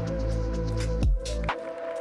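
Background music with a steady beat, a deep bass line and a low drum hit about a second in.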